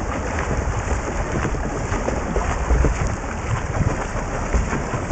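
Pool water heard underwater as a swimmer's front-crawl strokes and kick churn past: a steady bubbling, crackling rush of water with many small pops and a low rumble.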